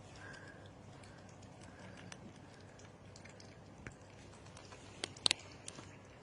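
Faint scattered clicks and taps, with a louder cluster of sharp clicks about five seconds in.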